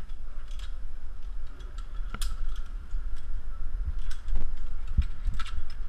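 A handful of sharp metallic clicks and clinks from climbing hardware, a Climbing Technology Sparrow rope descender and carabiners, handled while the climber hangs on the rope. The clicks are spread out, the sharpest a little past two seconds in, over a steady low rumble.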